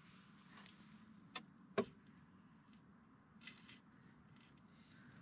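Faint handling sounds under a truck: two sharp clicks about half a second apart, then a brief rustle.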